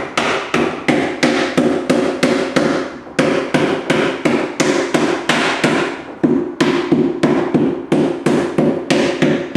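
Rubber mallet tapping a C-channel extrusion onto the edge of a clear golf cart windshield, a steady run of quick blows about four a second, with two brief pauses.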